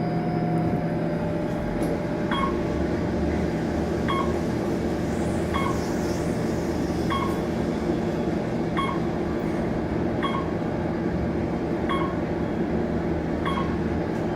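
Inside the cab of a 1996 Otis Elevonic 411 traction elevator travelling down: the steady hum of the ride. From about two seconds in, a short high beep repeats roughly every second.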